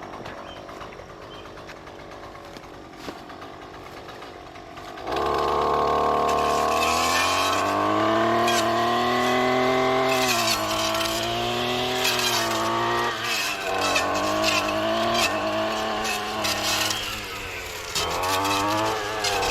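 Gas weed whacker fitted with a round chainsaw-tooth brush blade, idling and then opened up to full throttle about five seconds in. The engine note sags and recovers several times as the blade bites into tough brush and vines, with scattered sharp crackles of cutting.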